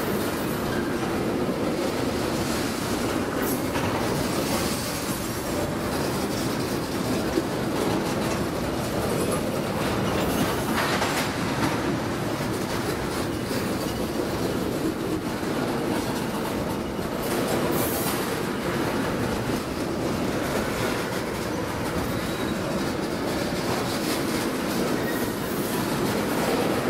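Train's railcars rolling steadily past, a continuous rumble with the clickety-clack of steel wheels over the rail joints and some wheel squeal.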